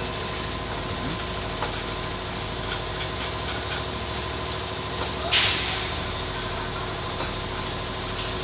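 Steady machine hum, with a few faint ticks and a single metallic clank about five seconds in as a steel support bracket is handled on a metal bar of an elevator door sill.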